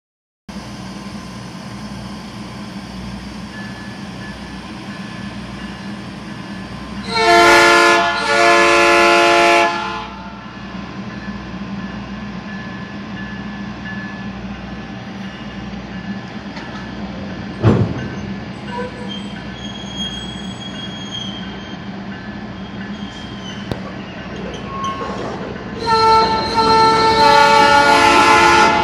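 Diesel locomotive air horn sounding a chord of several tones: two blasts about seven seconds in, then a long blast near the end. Between the blasts a steady low engine hum continues, and a single sharp bang comes about eighteen seconds in.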